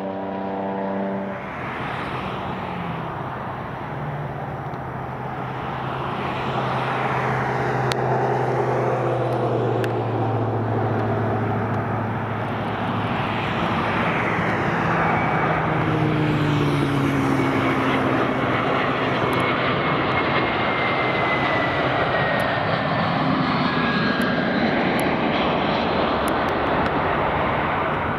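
Spirit Airlines Airbus A320-family jet on final approach passing close by: its engines' rumble swells and then holds steady, with whining tones that slide slowly down in pitch as it goes past.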